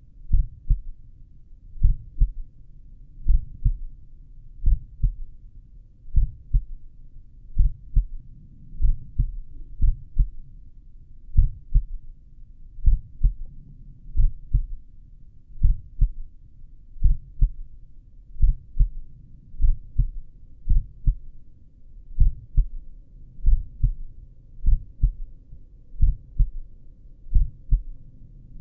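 Slow human heartbeat heard through a stethoscope at the apex of the heart: steady pairs of low thuds (lub-dub), about one pair every second and a half.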